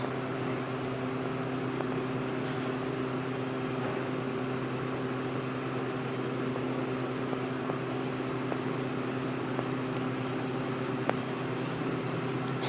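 Schindler/MEI hydraulic elevator travelling, heard as a steady low electric hum.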